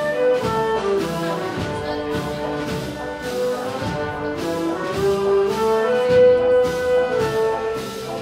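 Wind band of clarinets, saxophones and brass playing a melody of held notes over percussion keeping a steady beat.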